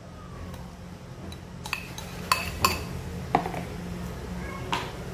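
A utensil clinking against a mixing bowl, about five light, separate clinks spread over a few seconds, as fruit juice extract is added to a soap mixture.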